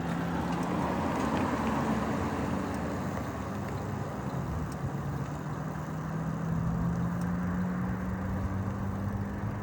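E-bike in motion: a steady hum from the bike and its knobby tyres rolling, over a rush of wind and road noise. The hum rises slightly in pitch and drops near the end.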